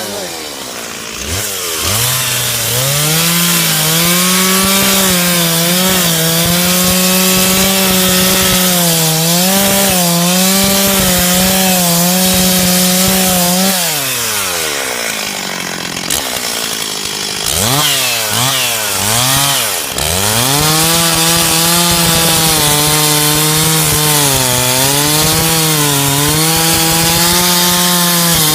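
Two-stroke chainsaw cutting into a large tree trunk at full throttle, its pitch sagging and recovering under load. About halfway through it drops back toward idle and is blipped up and down a few times, then goes back into the cut at full speed.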